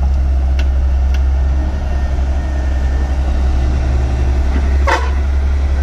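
Hitachi EX100WD wheeled excavator's diesel engine running steadily as the machine digs soil and swings to dump it into a trolley. Two light clicks come in the first second or so, and a brief clank about five seconds in.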